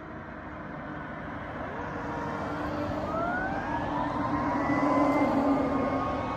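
A fire engine's Q2B mechanical siren winding up, its pitch rising about two and a half seconds in and holding high, over the road noise of a pickup truck passing close by. The overall sound grows louder toward a peak about five seconds in as the engine approaches.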